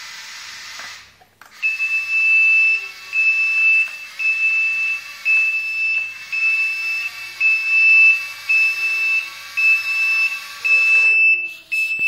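Electronic reversing beeper on a 1:50 scale Komatsu D575A model bulldozer, starting about a second and a half in and sounding about once a second, each high beep lasting nearly a second with short gaps between. Under it runs a fainter steady whine that falls in pitch near the end.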